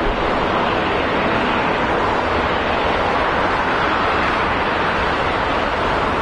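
Jet engines of an Airbus A320 (CFM56 turbofans) as it rolls along the runway after landing: a steady, even rushing noise with no distinct tones.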